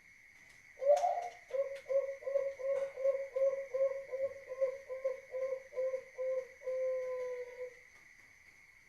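Male Bangkok-bred zebra dove (perkutut) singing in a deep, full voice: an opening note, then a rhythmic run of about a dozen short coos, roughly two a second, ending in one long held coo.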